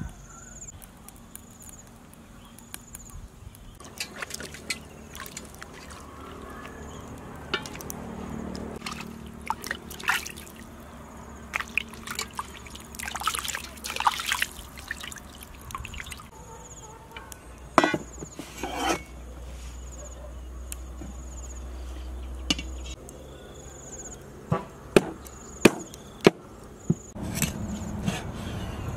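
Water splashing and trickling as a whole raw chicken is rinsed by hand in a steel bowl of water. Near the end come a few sharp knocks of a cleaver chopping on a wooden board. Insects chirp steadily in the background.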